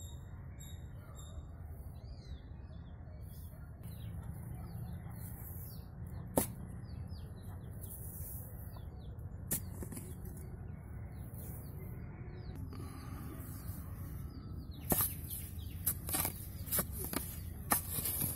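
Small birds chirping over a steady low rumble, with a few sharp knocks, bunched near the end, as a hand digging tool strikes the earth in a pit dug for palmyra sprouts.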